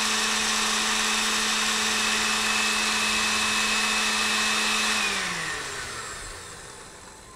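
Countertop blender with a small blending cup running steadily as it purées a parsley, olive-oil and vinegar chimichurri sauce. About five seconds in it is switched off and the motor winds down, its pitch falling as it fades.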